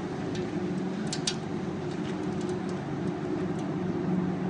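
Tornado winds heard from inside an underground storm shelter as a steady, muffled rumble, with scattered faint ticks.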